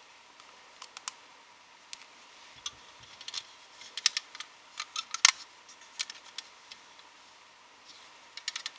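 Irregular light clicks and taps of a clear plastic loom-band loom being handled as rubber bands are stretched onto its pegs, the loudest about five seconds in.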